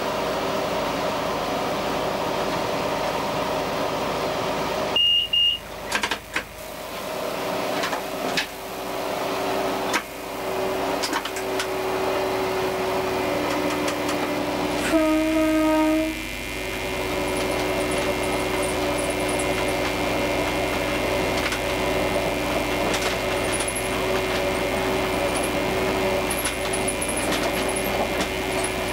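Diesel railcar running, heard from the driver's cab: a steady engine and transmission hum over the rail noise. A short high beep sounds about five seconds in, and a loud horn blast of about a second sounds about fifteen seconds in.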